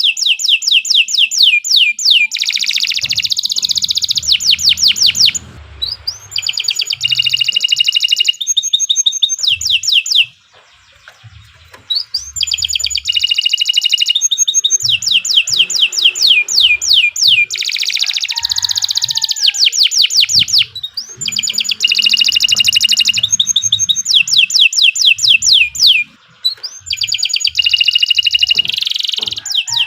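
Domestic canary singing long, continuous song: fast rolling trills of rapidly repeated high notes, the phrase changing every second or so, with a few short breaks.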